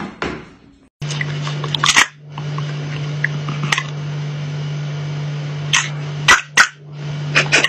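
Small electric motor of a moving plastic cat toy whirring steadily, with several sharp clicks and knocks.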